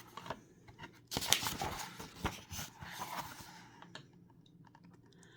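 A storybook page being turned: paper rustling and crinkling with a few sharp crackles, starting about a second in and dying away after about three seconds.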